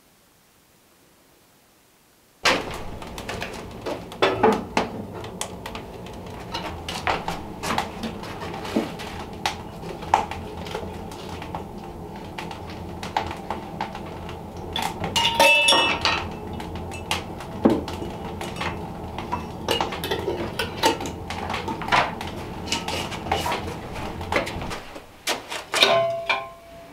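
Metal pots, pans and utensils clattering and clinking during kitchen work, with a steady low hum underneath. It starts after a couple of seconds of near silence. A louder clang rings out about halfway, and near the end a pan knocks and rings briefly as it is hung on a hook.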